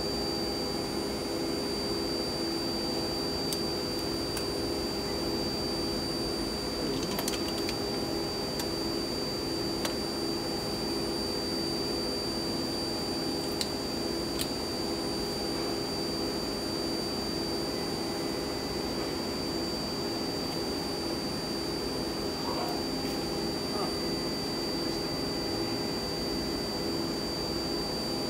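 A steady machine drone with a constant high whine, unchanging throughout, with a few faint ticks now and then.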